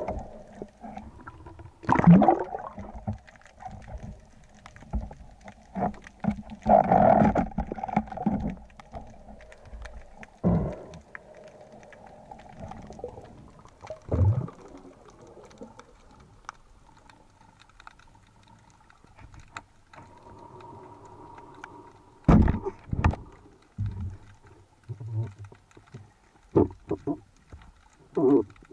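Muffled underwater knocks, thuds and water noise heard through a diving camera's housing as a spearfisher moves with a speargun. The sounds come in uneven bursts, with two sharp knocks close together about three-quarters of the way through and a few more short knocks near the end.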